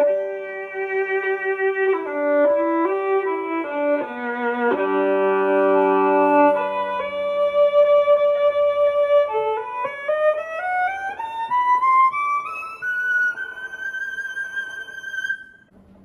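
Violin bowed through a Schertler wireless contact pickup and a Schertler acoustic amplifier. It opens with sustained two-note chords, then climbs a scale to a high note that is held for a few seconds and stops just before the end.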